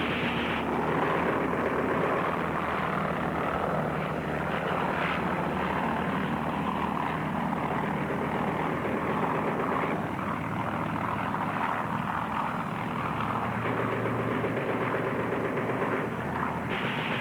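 Aircraft sound effect: a steady engine drone with no break.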